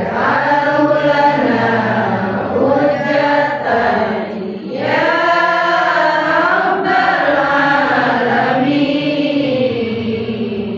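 Melodic Quran-style chanting by a single voice in long, wavering held phrases, with a short pause for breath about four and a half seconds in.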